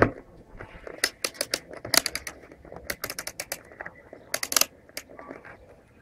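Rotary selector switch of a Wavetek handheld multimeter being turned to a resistance range, clicking through its detents in several quick runs of sharp clicks.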